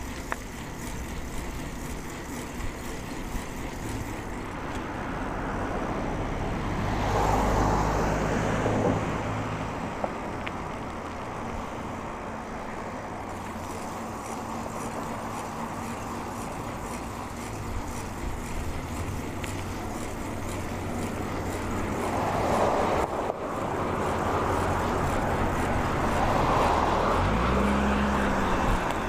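Road traffic: motor vehicles passing close by over a steady hiss of road noise, one swelling and fading about seven seconds in and more building up in the last third, where an engine's pitch briefly dips.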